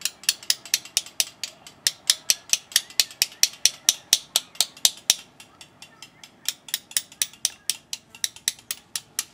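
Hand hammer striking a steel chisel held against a stone block, chipping stone away in quick, even blows of about five a second. The blows go lighter for a moment a little past the middle, then pick up again.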